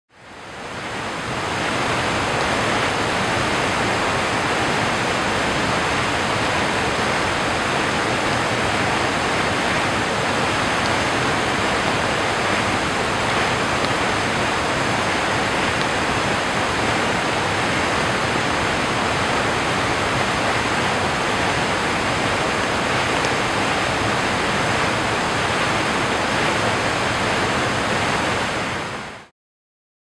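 Steady rush of stream water. It fades in over the first couple of seconds and fades out just before the end.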